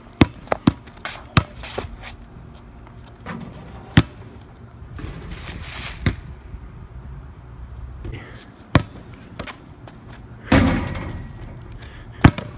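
Basketball bouncing on an outdoor court: a run of quick dribbles, then single bounces a few seconds apart. A louder, longer noisy burst comes about ten and a half seconds in.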